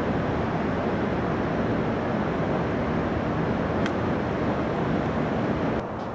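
Steady roar of city traffic and street noise rising from the street far below a high hotel room, which drops suddenly in level near the end.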